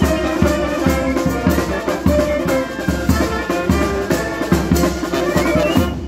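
Brass band of trumpets, trombones and saxophones playing a tune over a bass drum beating about twice a second. The music stops at the very end.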